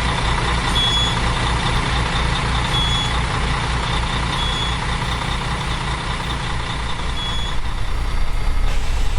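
School bus engine idling with a steady low throb, with a short high beep repeating every couple of seconds.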